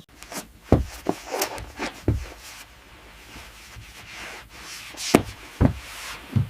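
Footsteps: a run of soft, uneven thuds, several in the first two seconds, a pause, then more from about five seconds in.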